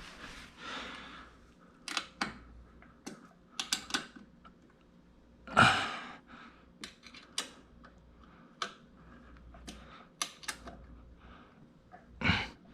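Scattered clicks and light knocks of metal parts and tools being handled during assembly of a plotter stand, with one louder scrape or clatter about six seconds in.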